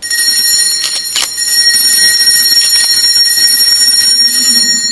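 Altar bells ringing loudly and continuously with a bright, high ring that starts suddenly and holds, with a few sharper strikes in the first seconds. This is the bell rung at the elevation during the consecration at Mass.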